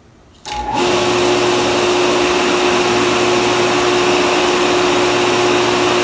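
Electric water pump motor switching on abruptly about half a second in and then running steadily with a constant hum and tone. It starts because the float switches read the upstairs tank empty and the downstairs tank full.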